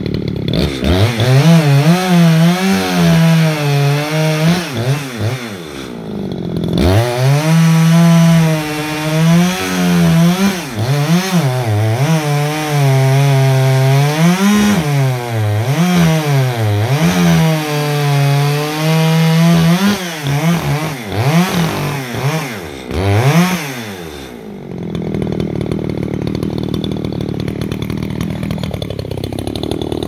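ECHO CS-620P two-stroke chainsaw with a 24-inch bar cutting wood, its engine speed rising and falling under load. It eases off briefly about six seconds in, then settles to a steady idle for the last few seconds.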